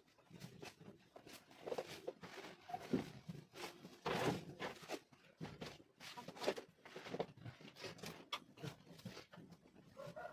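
Sheep moving about in their pen: irregular knocks and clicks of hooves and rustling, with no rhythm.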